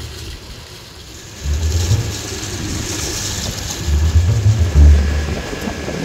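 Fishing boat underway: a steady rush of engine and water, with wind buffeting the microphone in irregular low gusts.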